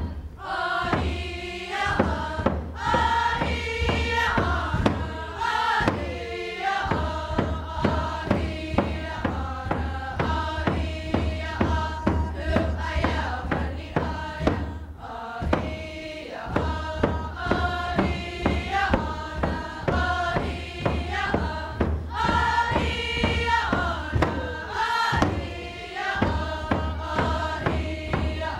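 A mixed group of voices singing a Tlingit honoring song in unison to a steady drum beat, in phrases with short breaks between them.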